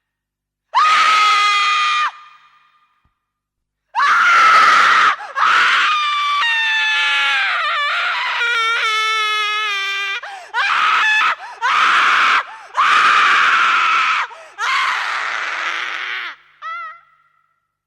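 A woman screaming, high-pitched: one scream about a second in, then after a pause a long run of screams, some held steady and some wavering, with a short squeal near the end.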